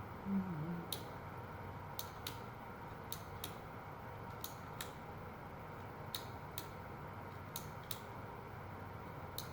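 Teddy Ruxpin's tape-player mechanism running with a steady hum and clicking in pairs about every second and a half. This is the repeated turning and stopping of a mechanism that will not keep playing.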